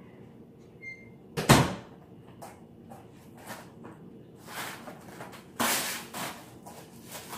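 A door shuts with a single loud thump about a second and a half in, then a plastic bag is pulled from a Glad box, the plastic and cardboard rustling and crinkling in short bursts.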